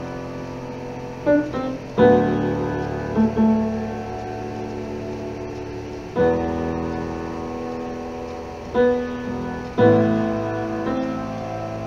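Upright acoustic piano played solo: full chords struck about every four seconds, each left to ring and fade, with single melody notes between them.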